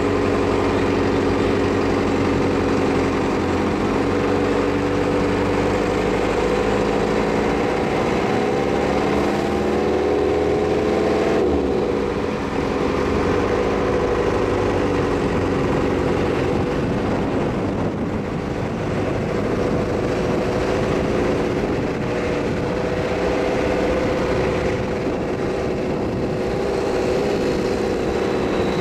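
A vehicle engine running steadily in slow stop-and-go traffic, over a constant rush of road and wind noise; its pitch shifts up and down briefly about a third of the way through.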